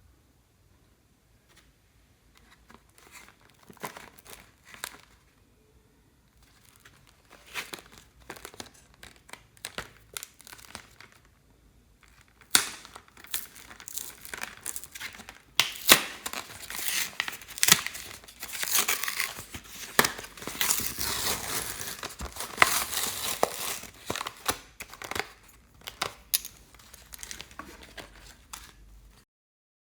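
Clear slime being squished, stretched and mixed by hand, with crackling, popping and crinkling. Scattered softer squishes come first; from about twelve seconds in the crackling turns dense and loud, then thins out and cuts off just before the end.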